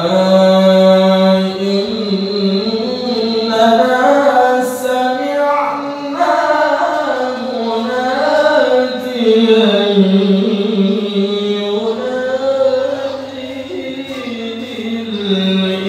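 A man reciting the Quran in the melodic tilawah style into a handheld microphone, holding long notes that slowly rise, fall and waver in ornamented runs.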